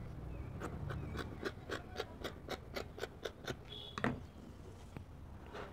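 Dressmaking scissors snipping through folded fabric, an even run of crisp cuts at about five a second, followed by a single sharper knock about four seconds in.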